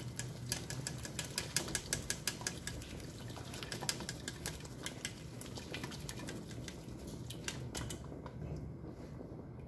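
Spoon scraping and tapping against a metal fine-mesh strainer as ground chile sauce is worked through it into a pot: a quick run of clicks that stops about eight seconds in, over a low steady hum.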